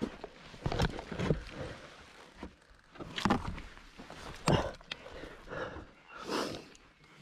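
Heavy breathing and grunts from a rider wrestling a fallen dirt bike on rocky ground, a strained breath every second or two, with knocks and scrapes of the bike and boots against rock. The bike's engine is not running.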